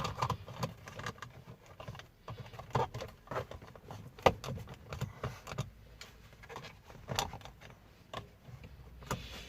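Irregular clicks, knocks and light rattles of plastic dashboard trim and a USB charger socket being handled and pressed into place in a car's console.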